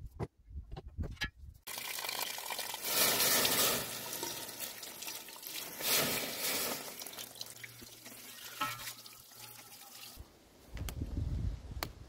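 Water from a water-butt tap running and splashing over the hot steel socket of a spade, quenching it so that it steams. The water starts a little under two seconds in and stops about ten seconds in.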